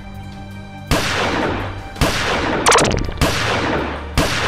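Five loud gunshot-like blasts, roughly a second apart, each dying away in a long echoing tail, dubbed in as sound effects for Nerf blaster fire, over a steady low hum.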